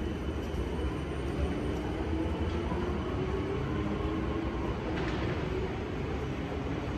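South Western Railway Class 455 third-rail electric multiple unit pulling away from a platform and accelerating over a steady rumble from the train. A motor whine rises in pitch as it picks up speed, and there is a faint click about five seconds in.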